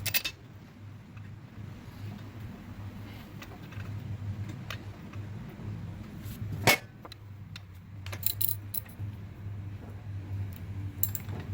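Metal clinks and taps of a spark plug and socket as the plug is threaded back into a string trimmer's cylinder head, with one sharp knock about two-thirds through and a quick run of clicks soon after, over a low steady hum.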